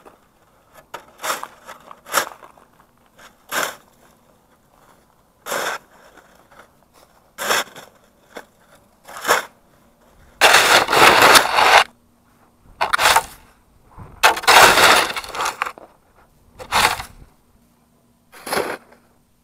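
Snow shovel scraping and chopping at packed snow and slush on a road edge. It makes short scrapes every second or two, with two longer, louder scrapes of about a second and a half each just past the middle.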